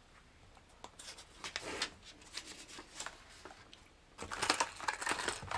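Pen writing on paper, with scratchy, irregular strokes from about a second in. A denser, louder patch of rubbing and rustling comes near the end.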